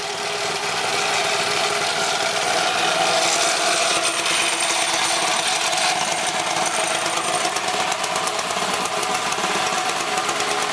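Predator 212 single-cylinder four-stroke mini bike engine running at a high, steady idle just after a cold start, with a rapid even firing beat. It builds slightly over the first couple of seconds, then holds level.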